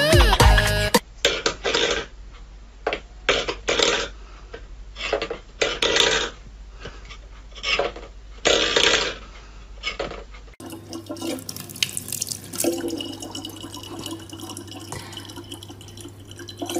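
A run of short clattering and scraping noises, then water trickling from a tap into a plastic bottle over a steady low hum.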